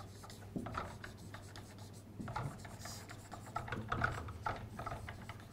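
Marker pen writing on a whiteboard in short strokes, with one higher, brighter stroke about three seconds in.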